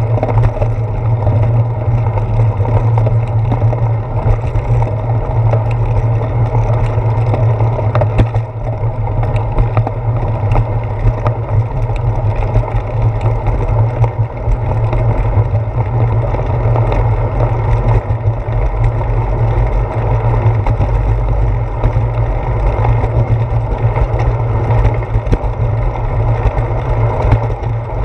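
Steady low rumble of wind buffeting and road vibration picked up by a handlebar-mounted GoPro Hero 4 on a moving bicycle. There are a few brief knocks from bumps in the path.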